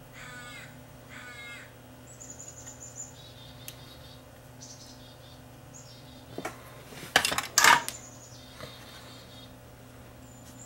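Two short harsh bird calls, caw-like, near the start, then a burst of loud clicks and clatter about six and a half to eight seconds in, over a steady low electrical hum.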